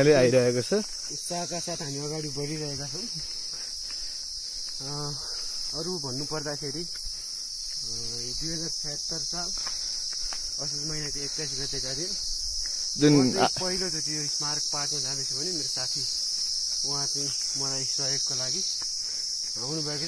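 A steady, high-pitched chorus of insects in the forest, unbroken throughout. Over it, a man's voice talks in short stretches, louder about thirteen seconds in.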